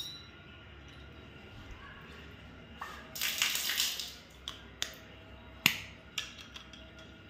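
Plastic and metal parts of a shower fitting clicking and knocking as they are taken off and handled for cleaning, with a brief hiss about three seconds in.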